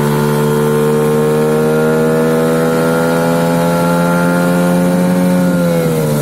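HANGKAI 9.8 outboard motor running at steady revs with a high whistle over the engine note, which the owner wonders comes from the 8.5×9 propeller. Near the end the pitch falls as the revs drop.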